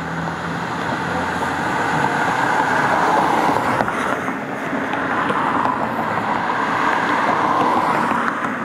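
Road traffic passing close by: tyre and engine noise from a car driving past, then from a red Volvo truck pulling a trailer as it approaches. The noise swells twice, as each vehicle nears.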